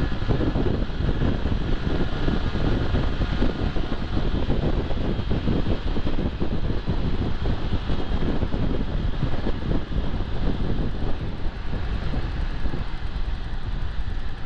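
Yamaha R15 V3's 155 cc single-cylinder engine and exhaust running steadily as the motorcycle cruises at road speed, mixed with wind rushing over the rider's camera microphone.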